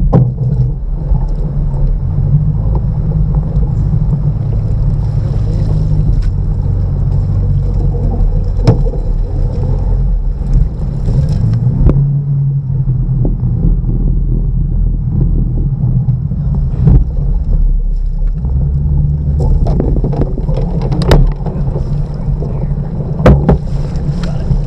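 Steady low drone of an electrofishing boat's motor running, shifting slightly in pitch, with a faint steady high whine over it. A few sharp knocks come through the drone.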